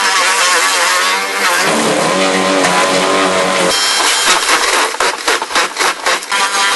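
Garden shredder grinding up branches pushed into its hopper: a loud, continuous mechanical grind, with a quick run of sharp cracks about five seconds in as the wood is chewed.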